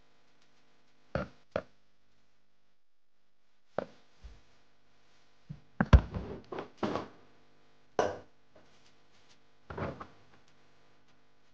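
Short, sharp clicks and knocks of wooden chopsticks and a plastic food container being handled, irregularly spaced and busiest around the middle. A faint steady hum sits underneath.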